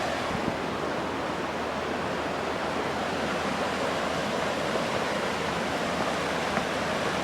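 Steady rush of the Middle Fork of the Salmon River flowing past the launch.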